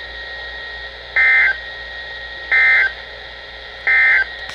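Three short bursts of warbling two-tone data, about a second and a third apart: the Emergency Alert System SAME end-of-message (EOM) code that closes the warning broadcast. Under the bursts run steady radio hiss and a faint thin tone.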